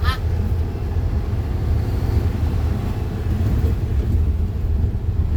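Dump truck's diesel engine running steadily, a continuous low rumble.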